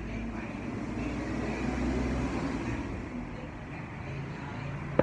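A motor vehicle running: a steady low engine hum with road noise, swelling a little around the middle.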